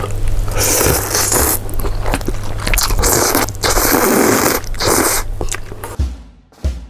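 A person slurping thin soupy noodles off chopsticks in several long, loud slurps, dying away near the end.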